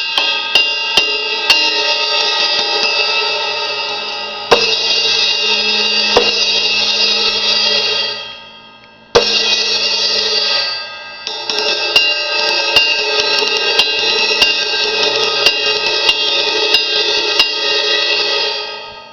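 Sabian AAX Xplosion 18-inch crash cymbal struck with a drumstick: a few light taps, then hard crashes about four and a half, nine and eleven seconds in, each ringing on in a long bright wash until it is cut short.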